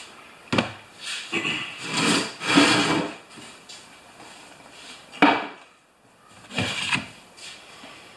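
Workshop handling noise: a run of knocks and scrapes as a wooden block is carried and set down and the trimmer is lifted off the workbench, with a sharp knock a little past five seconds in.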